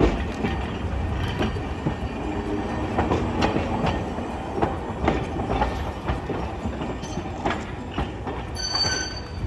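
Hiroden 650-class streetcar No. 653 rolling past on street track: a steady running rumble with irregular sharp clacks of its wheels over rail joints.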